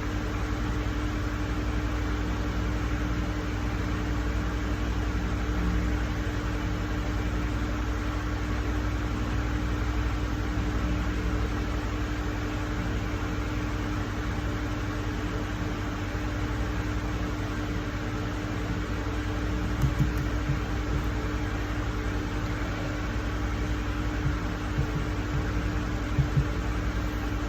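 Steady fan-like machine hum, a low drone with one steady mid-pitched tone over it, with a few faint clicks about twenty seconds in and again near the end.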